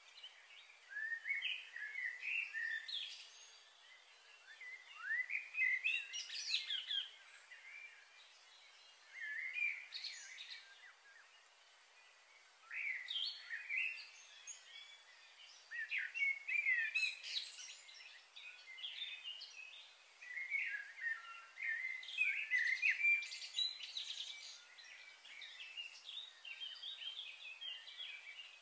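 Small birds chirping and calling in quick clusters of short notes, on and off, with a short lull about halfway through, over a faint background hiss.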